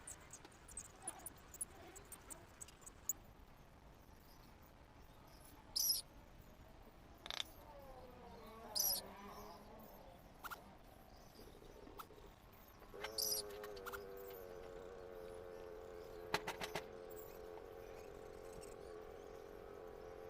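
Outdoor village ambience: scattered short high chirps and sharp clicks, then about two-thirds of the way in a steady, droning hum made of several tones starts and holds.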